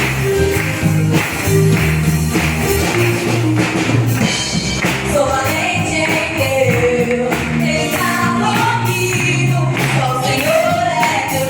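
Live gospel worship music: a band playing with a steady beat, and a singing voice coming in about halfway through.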